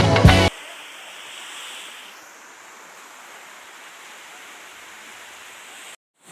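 Steady rushing of falling water from a waterfall. Rock music cuts off about half a second in, and there is a brief break near the end.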